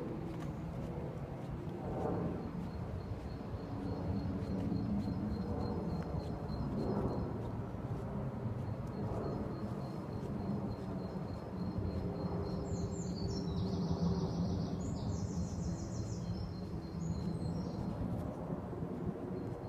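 Woodland ambience: a steady low background rumble, with birds singing high for several seconds in the second half.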